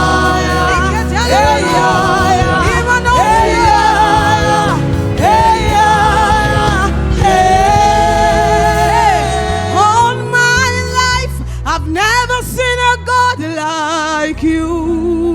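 Gospel praise-and-worship music: a singer's wavering melody over a band with bass. The band's low end thins out about ten seconds in.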